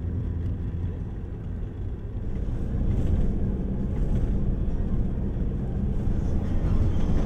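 Steady low rumble of engine and road noise heard from inside a moving vehicle, growing a little louder about two and a half seconds in.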